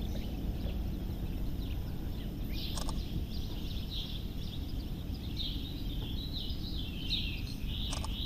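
Birds chirping and twittering continuously over a low wind rumble on the microphone, with two short clicks, one about three seconds in and one near the end.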